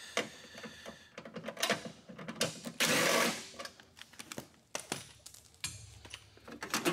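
Cordless drill with a socket extension spinning out 10 mm bolts in short runs, the longest and loudest about three seconds in. Sharp clicks of the socket and loose bolts on metal come between the runs.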